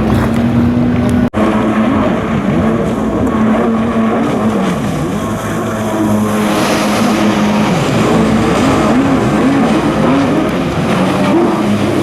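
Jet ski engines running hard, their pitch holding and then swinging up and down repeatedly as the throttle is worked. The sound cuts out for an instant about a second in.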